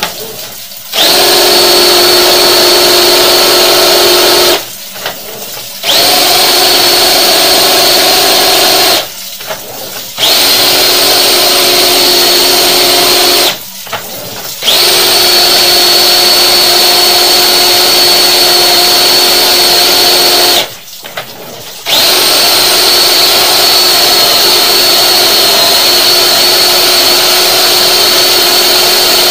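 Electric drain-cleaning machine's motor running at a steady high pitch, starting about a second in and cutting out briefly four times, each run lasting four to seven seconds.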